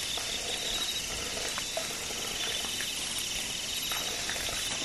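Crickets and other night insects trilling in a steady, high, pulsing chorus, with a few faint clicks.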